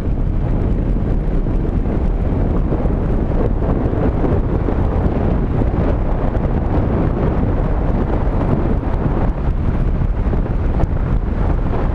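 Steady, loud rush of wind buffeting a GoPro's microphone on a moving vehicle, mixed with road noise.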